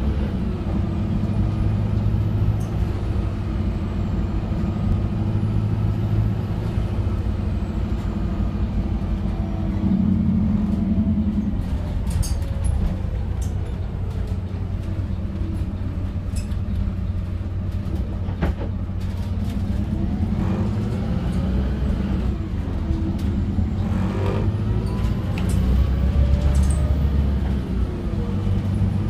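Interior sound of a Volvo B5RLEH hybrid bus on the move, its 4.8-litre diesel and integrated starter-alternator motor driving through an I-Shift gearbox: a steady low drivetrain hum with whines that rise and fall as the bus speeds up and slows. A few sharp clicks and rattles come through from the cabin, the clearest about two-thirds of the way in.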